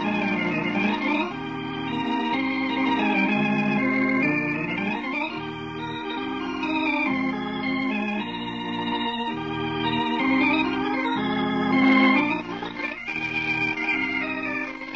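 Organ music playing the closing theme of a 1940s radio drama: held chords that move to new notes every second or so, swelling to their loudest near the end before easing off.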